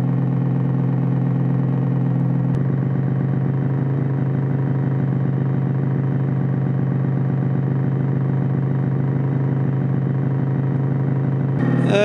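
Electronic synthesizer drone, a buzzy chord of steady stacked tones: the signal that drives the laser oscillograph's speaker. About two and a half seconds in a click shifts the texture, and near the end it switches abruptly to a new tone.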